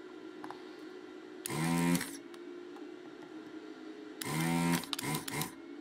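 Electric desoldering gun's vacuum pump switching on twice to suck molten solder off circuit-board joints. Each time a short motor buzz rises as it spins up, with a rush of suction: a brief pull about a second and a half in, and a longer one about four seconds in.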